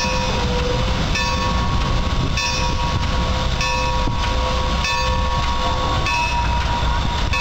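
Milwaukee Road 261, a 4-8-4 steam locomotive, moving slowly past with its bell ringing about once every 1.2 seconds over a steady hiss of escaping steam and a low rumble.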